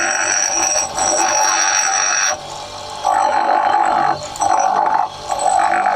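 Bench grinder wheel grinding a lathe tool bit to sharpen its cutting edge: a harsh grinding hiss in about five passes, with short dips each time the bit is eased off the wheel.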